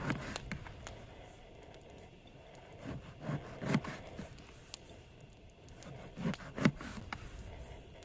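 Kitchen knife slicing an eggplant into thick rounds: each cut ends in a short sharp knock of the blade on the plate beneath, with a light scrape. The cuts come singly and in small groups a second or two apart.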